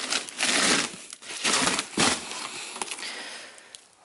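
Crinkle-cut shredded paper packing filler rustling and crackling as hands dig through a cardboard box and pull a shrink-wrapped box out of it. It comes in several irregular bursts that die down near the end.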